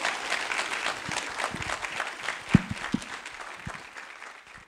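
Audience applauding, many hands clapping, the applause dying away toward the end.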